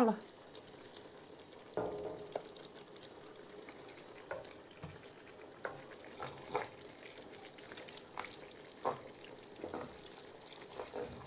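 Cooked sauerkraut tipped from a bowl into a steel pot of stewing pork, then stirred in with a wooden spoon: scattered scrapes and soft knocks of the spoon against the pot over a low, steady sizzle of the simmering stew.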